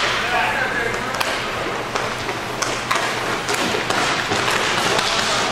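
Inline hockey play: a handful of sharp clacks from sticks striking the puck and each other, scattered irregularly over a steady background hiss, with indistinct shouting from the players.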